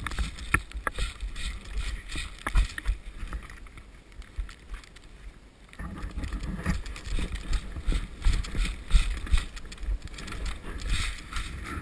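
Footsteps crunching through snow, uneven, with clothing and gear rustling close to the microphone.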